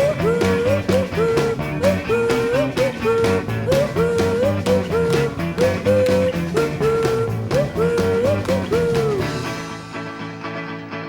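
Rock-style music with a bending, sliding lead melody over a steady drum beat; the band drops away near the end, leaving a quieter held sound.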